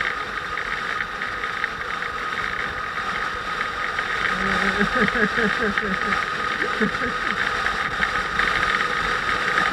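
Motorcycle engine running steadily, with indistinct voices in the middle.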